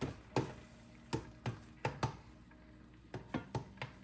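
Cooking utensil tapping and knocking against a skillet while butter and minced garlic are stirred in: about ten short, uneven taps.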